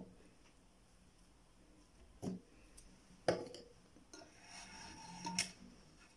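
Quiet room tone broken by three faint, short clicks, about two, three and five seconds in.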